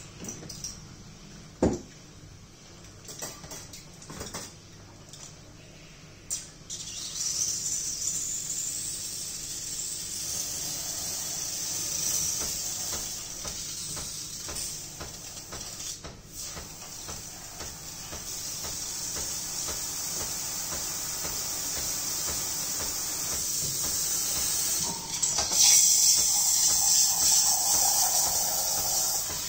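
Sage Barista Express steam wand hissing into a stainless milk jug as milk is steamed. The hiss starts about six seconds in and grows louder near the end. A single sharp knock comes shortly before it.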